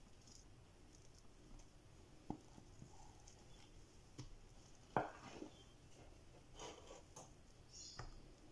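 Faint scraping and light taps of a silicone spatula spreading whipped cream in a glass baking dish, with a sharp knock about five seconds in and a few softer clicks.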